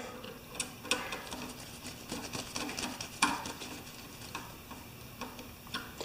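Small irregular clicks and taps of a screwdriver and wire terminals being worked into an air compressor's pressure switch, with sharper clicks about a second in and just after three seconds.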